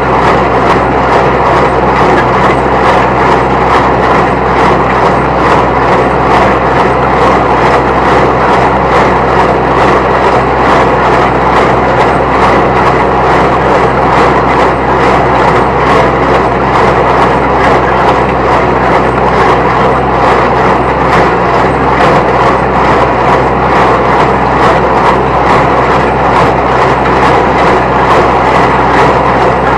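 30-horsepower New Holland T1510 tractor running steadily under load, driving a New Holland 269 Hayliner square baler through the PTO, with the baler's regular rhythmic clatter over the engine.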